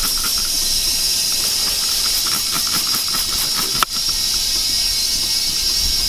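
Steady hiss of compressed air at a mower tire during a leak test, with one sharp click about four seconds in.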